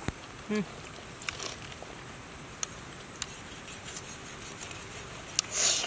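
Light clicks and rustling of palm leaves as pieces of raw salmon are handled and laid out on them, with a louder brief rustle near the end.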